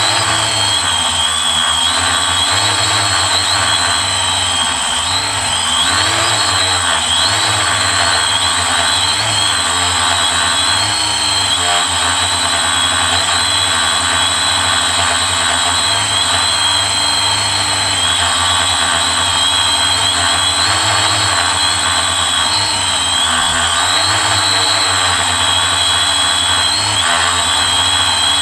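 Quadcopter's electric motors and propellers buzzing steadily, heard from the camera on its frame, the high whine wavering slightly up and down in pitch.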